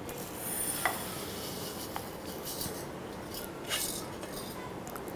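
Dry rice grains pouring and rustling from a steel bowl into a glass bowl, with a few light clinks of steel against glass.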